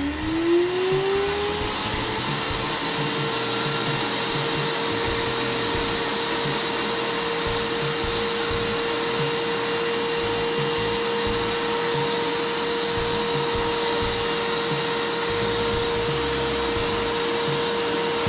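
Libelle vacuum cleaner's motor running after repair: a whine rising as it finishes spinning up in the first second or so, then a steady hum over the rush of air. The motor had been smoking from internal rubbing and now turns freely.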